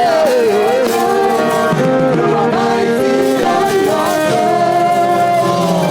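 Live worship music: sung vocals with wavering, held notes over sustained band accompaniment.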